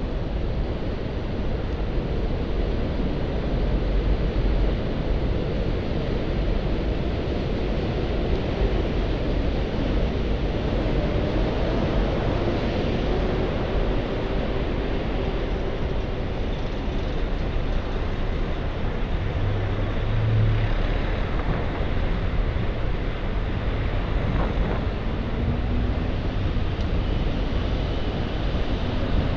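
Steady rumble of motor traffic on the Queensboro Bridge's roadways, mixed with the noise of riding along the bridge's bike path.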